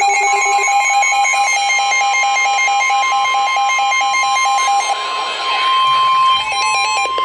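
NOAA Weather Radio's warning alarm tone, a steady high electronic tone, sounding ahead of a severe thunderstorm warning broadcast. For the first five seconds or so, rapid electronic alert beeps pulse over it, about six a second.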